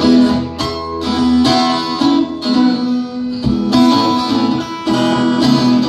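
Amateur band playing live, led by strummed acoustic and electric guitars. Chords ring out, with a new strum roughly every second at a slow, steady pace.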